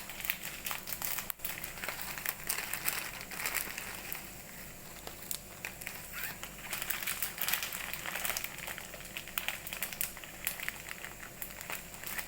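Maggi instant noodle packets being torn open and handled, the plastic wrappers crinkling with many quick, irregular crackles.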